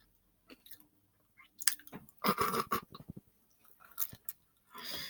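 Person chewing food, with short wet mouth clicks coming in brief bursts.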